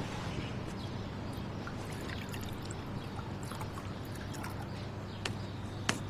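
Liquid poured from a glass jug into a glass as a steady trickle, with a couple of light clicks near the end.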